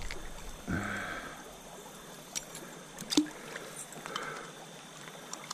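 Low, steady sound of stream water trickling, with a few light clicks about two and three seconds in.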